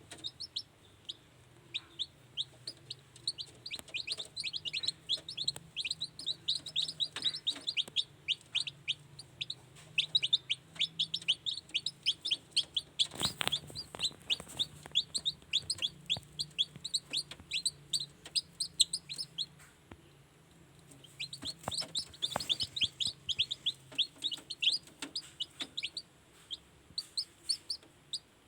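Newly hatched kampung chicks peeping: many short, high cheeps that slide down in pitch, coming in rapid flurries with a short lull a little past two-thirds through. A low steady hum runs underneath, and there is a single knock about halfway.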